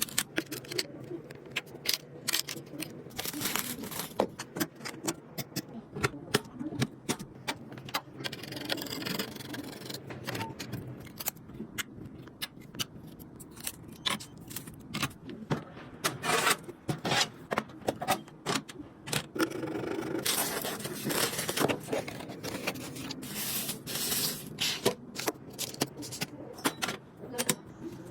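Computer parts being handled and fitted together by hand: many irregular clicks and taps of plastic and metal, with several short scraping or rustling passages.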